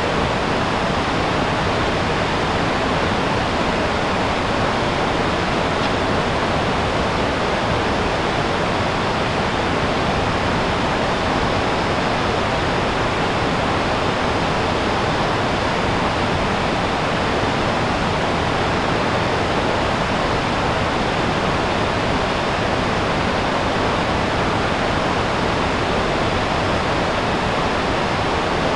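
River rapids rushing over rock ledges: a steady, unbroken wash of water noise.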